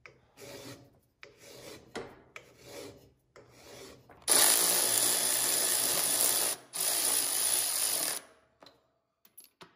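A hand file rasping in about five short strokes, filing down a burr on the transmission case where it mates to the bell housing. About four seconds in, a power ratchet runs loudly in two bursts with a brief break between them, running the transmission bolts in.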